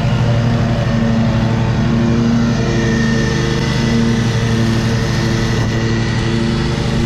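Riding lawn mower's small engine running steadily with the blades engaged, cutting grass.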